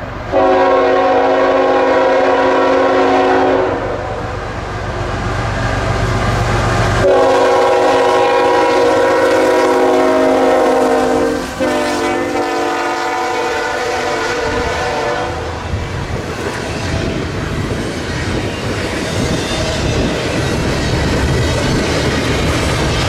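CSX double-stack intermodal freight train passing. The locomotive horn sounds three long blasts over the first fifteen seconds, with the locomotive's engine rumbling low under the first two. After that the loaded container well cars roll by with a steady clickety-clack of wheels over the rail joints.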